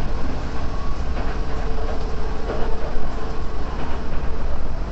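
Odakyu 4000-series electric train heard from inside the carriage while running: a steady low rumble with a faint steady hum that fades near the end.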